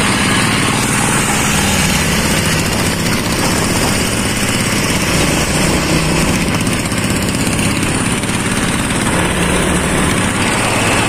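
Small diesel engine of a homemade motorcycle running steadily while riding on the road. It is heard from a second moving motorcycle, mixed with that bike's own running and road noise.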